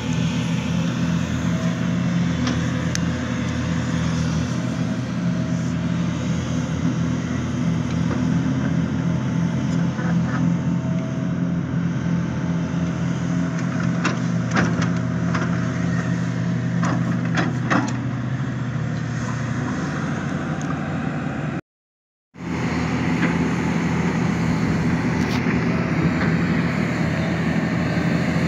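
Hitachi Zaxis 490 LCH excavator's diesel engine running steadily under working load, with a few sharp knocks around the middle. The sound breaks off completely for under a second near the end, then resumes.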